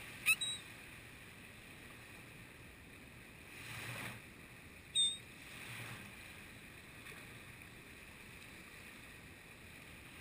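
Gulls giving short, sharp calls: two just after the start and one about five seconds in. Under the calls is the low steady wash of small surf, swelling softly twice.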